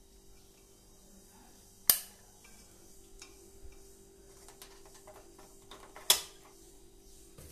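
Two sharp clicks about four seconds apart over a faint steady hum; the second is the switch lever of a Divya cylinder electric rice cooker being pressed down.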